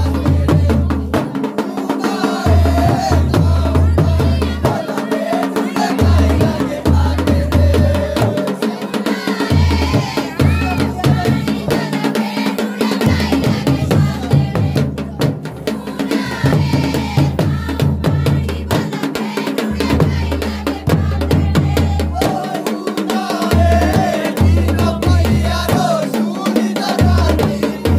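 Women singing a Jaunsari jhainta raso folk dance song in chorus to the beat of a large dhol drum. The deep drumming drops out briefly every few seconds while the singing carries on.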